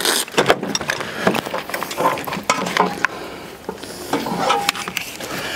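Irregular metallic clicking and clanking of hands and tools at a truck battery, as the battery is set into its box and its terminal cables are hooked up.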